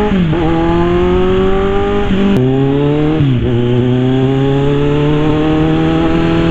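Kawasaki Z1000 inline-four engine accelerating under the rider, its pitch climbing steadily and dropping sharply at each upshift, a couple of times in the first half, over wind and road noise.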